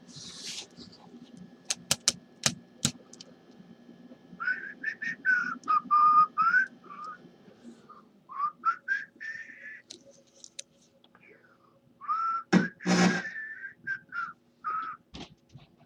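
A person whistling a tune in short gliding phrases, after a few sharp clicks, with a brief thump partway through the later phrases.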